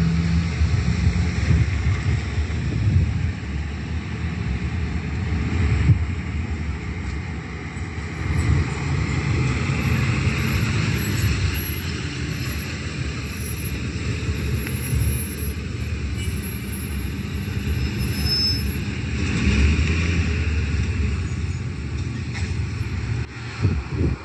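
Road traffic, with the engine of an EMS truck running as it drives past close by, its tyres hissing on the road. No siren sounds.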